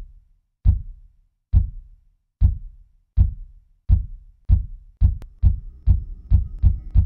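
Deep single thumps in a horror soundtrack, repeating at first a little under once a second and speeding up steadily to nearly three a second. A faint sustained tone comes in under them about five seconds in.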